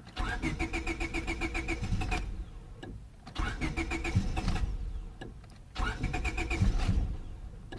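2000 Honda Civic 1.6L four-cylinder engine being cranked by its starter in three separate tries, each a rapid rhythmic churning with a steady whine, without catching. This is a no-start in damp weather despite fuel being smelled at the engine.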